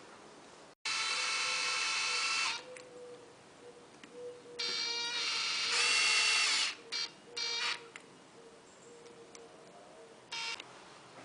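Cordless drill-driver motor whining in bursts as it runs screws into the housing of a viscous fan clutch. There are two longer runs of about one and a half and two seconds, then a few short blips as the screws seat.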